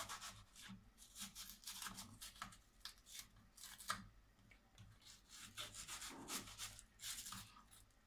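Knife slicing an onion into rings: faint, irregular cutting strokes.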